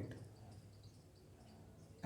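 Near silence: a pause in speech with only faint room tone and low hum.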